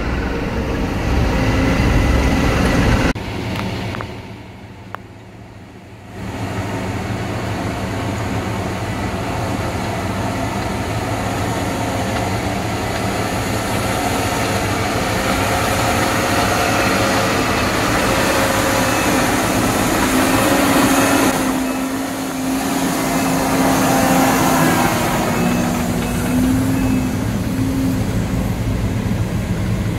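Tracked haul truck's engine running as it drives, heard from inside the cab. It drops to a much quieter stretch from about three to six seconds in, then comes back at the same steady level.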